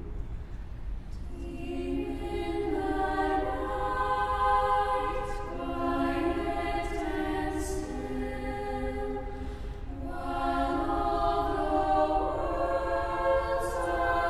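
Mixed chamber choir singing in slow, sustained phrases that swell and ease, with a short breath about ten seconds in and brief 's' consonants cutting through.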